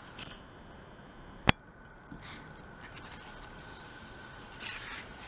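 A hardcover album photo book being handled and opened, its paper pages rustling softly near the end, with a single sharp click about one and a half seconds in.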